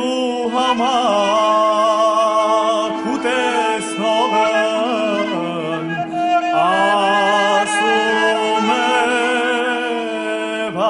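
Armenian folk song of the troubadour tradition: a solo voice sings long, ornamented phrases over a steady held drone, starting a new phrase about every three seconds.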